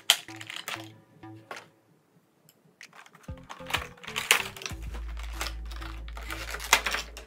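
Clear plastic packaging crinkling and clicking in bursts as vinyl Funko Pop figures are pulled out of their boxes and plastic trays, pausing briefly around two seconds in. Background music plays underneath, and a steady bass comes in about halfway through.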